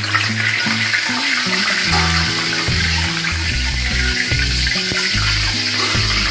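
Hot cooking oil sizzling steadily in a wok while fried garlic slices are lifted out in a wire-mesh strainer and drained over it.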